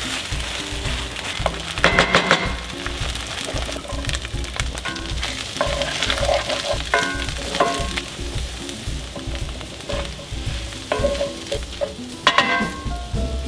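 Chorizo and diced onion sizzling in a cast iron skillet, stirred and scraped with a wooden spoon, with the loudest scrapes about two seconds in and near the end. Soft background music with a steady bass line plays underneath.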